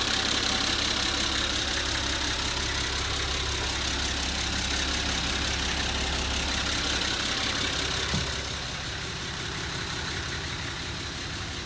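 Nissan TD42 4.2-litre straight-six diesel idling steadily, heard through the open engine hatch inside the bus cab. A single knock comes about eight seconds in, after which the engine sound is quieter.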